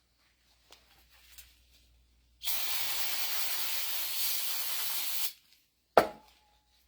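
A steady spraying hiss for about three seconds as a hydraulic pump part is sprayed clean, then one sharp clink with a brief ringing tone.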